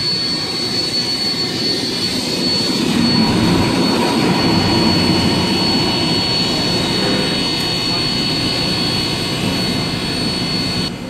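Standing NSWGR 32 class steam locomotive 3265, a steady roar of escaping steam with a high thin whine running through it. It cuts off abruptly near the end.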